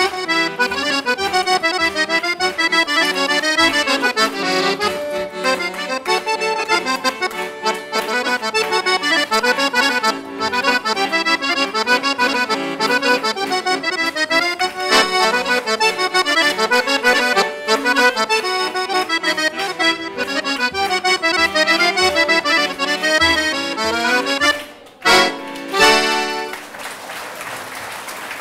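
Cavagnolo chromatic button accordion playing a fast solo tune with quick running notes, ending on a couple of short, loud final chords near the end. Applause begins as the music stops.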